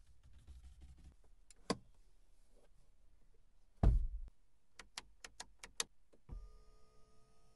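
Clicks from switches in a Mercedes-Benz cabin, a heavy thump near the middle, then a quick run of six clicks. About six seconds in, an electric seat motor starts a steady whine as the seat-adjustment switch on the door is worked.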